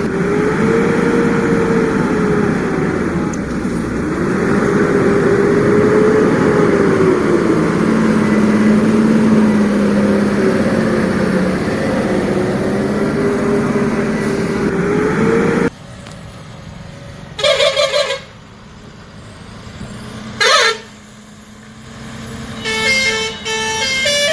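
Toy construction vehicles' electronic sound effects: a steady engine rumble whose pitch slowly rises and falls. It cuts off abruptly about two-thirds of the way in, followed by two short horn toots and then a quick run of beeping electronic notes.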